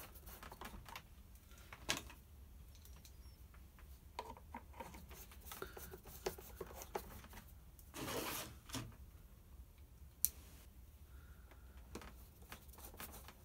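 Light clicks and taps of a screwdriver and plastic parts as the sole plate is screwed back onto the base of a Hoover upright vacuum cleaner, with a brief louder rustling noise about eight seconds in and a single sharp click about ten seconds in.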